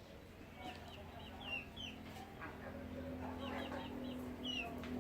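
Chickens clucking, with many short high-pitched chirps scattered through, over a steady low hum.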